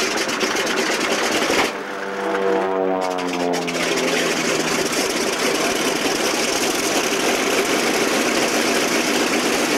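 Pratt & Whitney R-2800 radial engine of an FG-1D Corsair running on the ground with its propeller turning, a loud steady sound. About two seconds in it briefly dips and a falling whine glides down over a couple of seconds.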